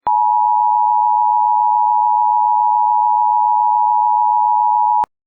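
Emergency alert attention tone: one steady electronic tone held for about five seconds, starting and stopping abruptly with a click.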